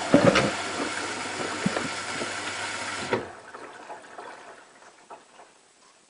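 Hotpoint Ultima WT960 washing machine on a boil wash: water sloshing in the drum and a steady machine hum that cuts off sharply about three seconds in. After the cutoff come faint drips and trickles in the drum.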